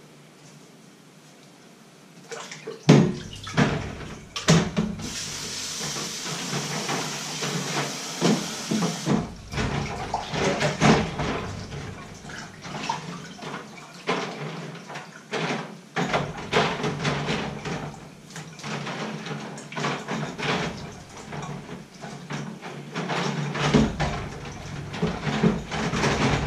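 Dishes being washed by hand in a stainless-steel kitchen sink: water splashes, and dishes and pots knock and clatter as they are scrubbed. A tap runs with a steady hiss for a few seconds starting about five seconds in.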